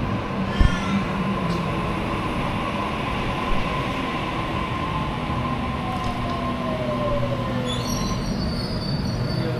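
Sydney Trains electric suburban train running at the platform: a steady whine over rumble, with a second whine falling in pitch partway through. A high squeal starts near the end, and there is a short thud about half a second in.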